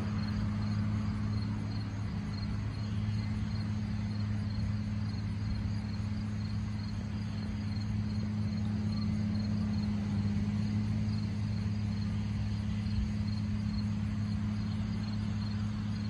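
Combine harvester running steadily while harvesting and unloading grain, an even low drone with no change in pitch.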